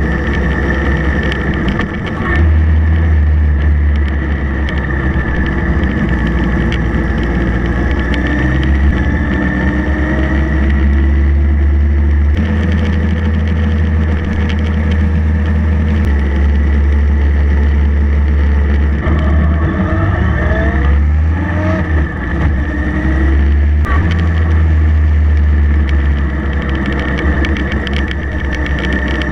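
Motorcycle engine running while riding, recorded from the bike itself, under a steady low rumble. About two-thirds of the way through, the engine pitch rises and falls a few times.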